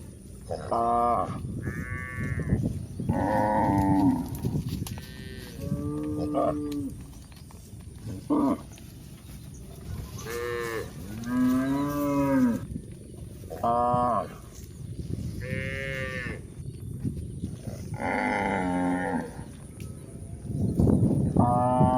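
Cattle mooing: about a dozen calls a second or two apart, some low and some high-pitched, several bending up or down in pitch, with a loud one near the end.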